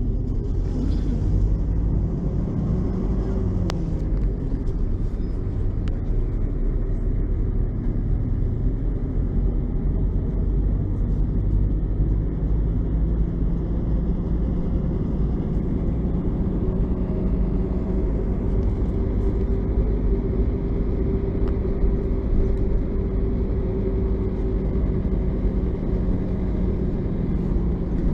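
LAZ 699R bus's ZIL V8 petrol engine running with a steady rumble; its pitch eases down slightly in the first few seconds, then holds even.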